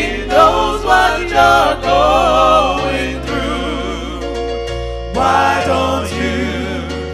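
Gospel song: singing with wide vibrato over held chords and a steady bass line.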